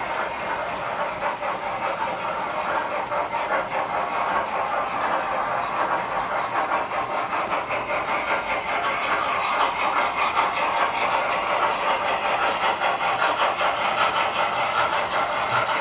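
Tinplate model trains running on metal track: a steady mechanical rattle of motors and wheels clicking over the rails, growing louder about halfway through as a train passes close.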